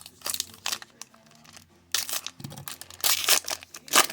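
Hockey card pack wrapper being torn open and crinkled, in several short crackling bursts, the loudest near the end.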